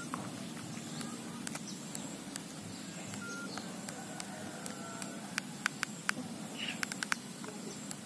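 Keys of a Nokia 3200 mobile phone being pressed to unlock the keypad and open the menu. Faint, sharp key clicks come in a cluster between about five and seven seconds in, with a couple of short faint beeps earlier, over a steady background hiss.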